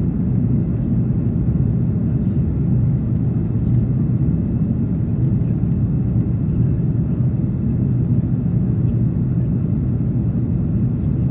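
Steady low rumble of an Airbus A330-300's engines and rushing air, heard inside the passenger cabin during the climb after takeoff.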